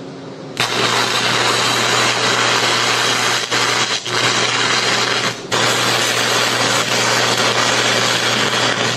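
Stick-welding arc at 225 amps from a 3/32-inch Hobart cutting and chamfering electrode, crackling and hissing as it burns into steel sheet and plate. The arc strikes about half a second in and drops out briefly three times around the middle.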